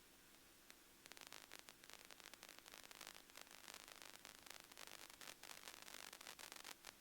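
Faint crackling static over a low steady hum, the crackle starting about a second in and stopping near the end.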